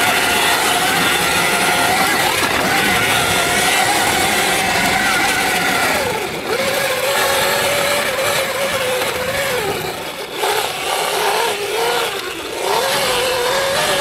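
Electric dirt bike's motor whining under throttle over a steady rushing noise; the whine's pitch wavers, sagging and climbing again a few times in the second half as the throttle is eased and reapplied.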